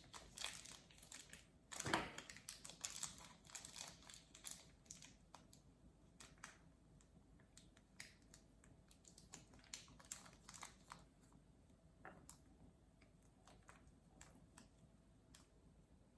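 Faint clicks and crinkles of a small plastic toy capsule and its packaging being handled. They are busiest in the first few seconds, with one sharper click about two seconds in, then become scattered and sparse.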